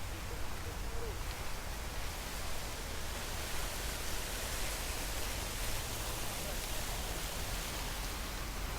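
Chorus of cicadas singing, a dense shrill buzz that swells about three seconds in and eases off near the end, over a low rumble from wind or distant traffic.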